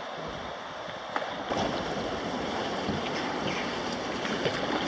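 Rushing river water with wind buffeting the microphone, and a few brief clicks over the steady noise.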